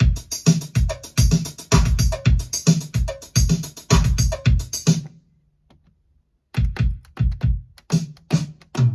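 Roland TR-707 drum machine, modded with extra voice sound banks, playing a drum pattern of low kicks under fast high hi-hat ticks. The pattern cuts off about five seconds in, and after about a second and a half of silence a sparser pattern starts.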